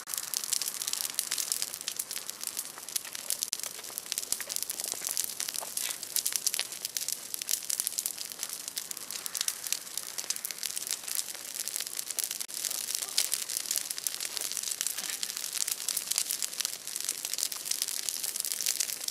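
Large bonfire of broken tree branches burning with fast, dense crackling and snapping.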